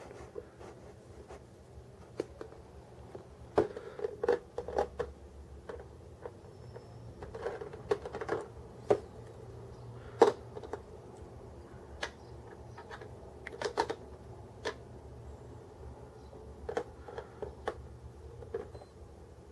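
Small plastic figure pieces clicking and tapping on a hard surface as a Nendoroid figure and its little accessory books are handled and set in place, in irregular light knocks.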